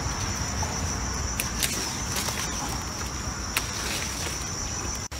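Insects chirring steadily at one high pitch, with a few faint clicks and rustles from the bean vines being handled. The sound drops out for a split second near the end.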